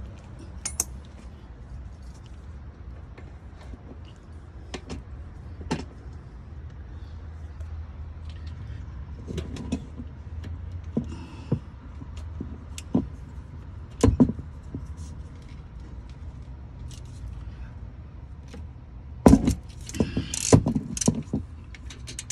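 Hand tools working on a crankshaft position sensor: scattered metallic clicks and knocks of a 10 mm socket on a long extension, with a quick run of clicks near the end, over a low steady hum.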